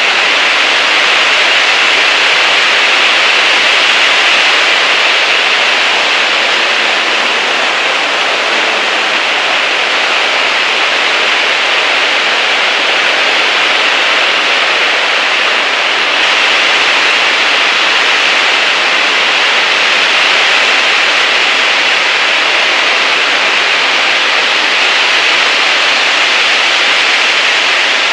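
Heavy rain driven by strong wind, a loud steady hiss with no let-up.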